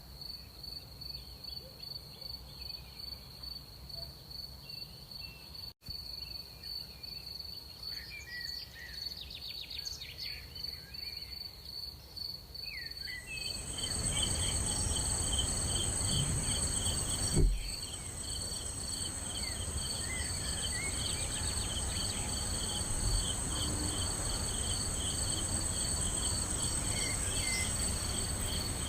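Night insects chirping in steady, evenly pulsed trills, cricket-like. About halfway through, a second, higher insect chorus and a louder background hiss join in, and a single low thump sounds a few seconds later.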